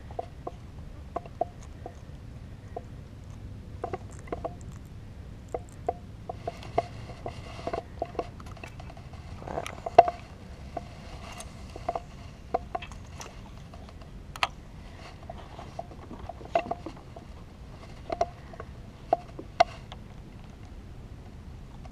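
Scattered light knocks and clicks of a spinning rod and reel being handled in a plastic kayak, over a low steady rumble, with one sharper knock about ten seconds in.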